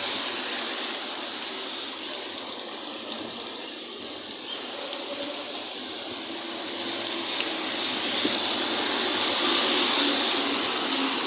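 Heavy storm rain and running water, a steady rushing hiss that grows louder about two-thirds of the way through.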